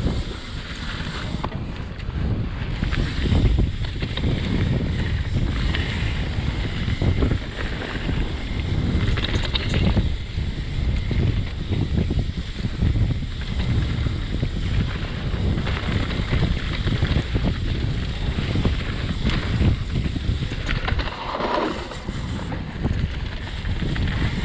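Heavy wind buffeting the microphone over a steady low rumble of tyres rolling fast on a dirt trail, as on a mountain-bike descent. There is a brief rising squeal near the end.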